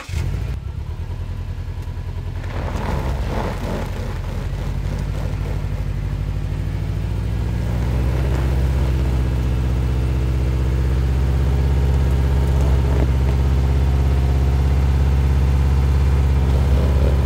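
Turbocharged flat-four engine of a 2012 Subaru Forester XT revving under load, with its tyres spinning on loose dirt and stones, as the stuck car tries to drive forward against a tensioned recovery strap. The engine grows louder over the first several seconds, then holds steady.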